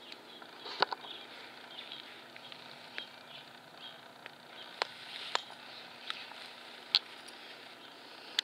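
Puppy rolling in grass and mouthing a rubber lattice ball: soft rustling broken by a handful of sharp clicks, the loudest about a second in and near seven seconds.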